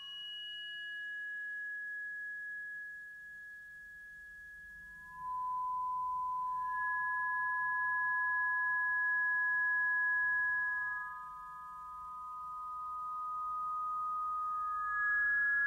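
Acoustic feedback from microphones inside a bass clarinet sent through speakers: pure, steady whistling tones, two or three held at once at different pitches, their pitch set by the instrument's keys. A higher tone fades about two seconds in, a lower one enters about five seconds in and stays, and more tones pile up near the end.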